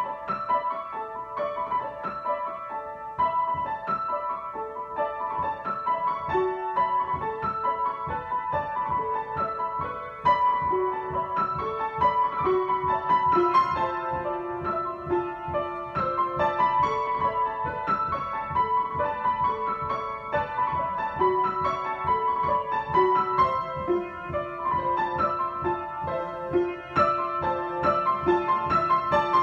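Solo piano improvisation: a busy figure of quick notes over a slower-moving lower line, starting abruptly.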